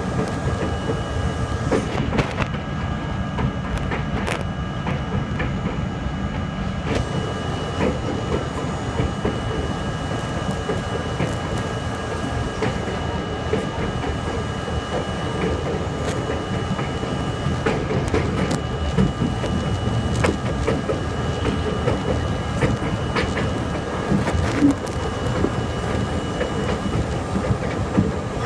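R32 subway car running at speed on elevated track, heard from inside the front car: a steady rumbling roar of wheels on rail, broken by irregular sharp clacks over rail joints, with a few thin steady whining tones above it.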